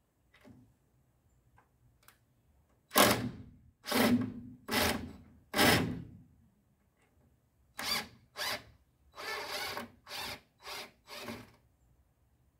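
A cordless drill runs in short trigger bursts, driving screws into the greenhouse's wooden door frame. There are about ten runs in all: four louder ones, then a quicker series of shorter, quieter ones.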